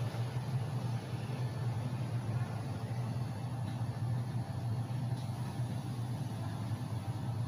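Steady low hum of running industrial machinery over a constant rush of noise.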